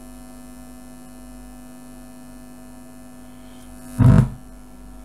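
Steady electrical hum from a DIY radio kit played through an amplifier with the volume turned up. About four seconds in comes a brief loud thump.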